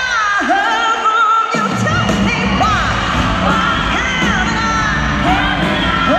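Live arena concert music: a female lead vocal sings wavering held notes over the band. The bass and drums drop out for about a second and a half near the start, then come back in.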